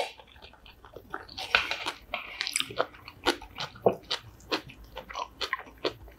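Close-miked eating: a person chewing a mouthful of cucumber bibimbap, with irregular wet mouth smacks and crunches.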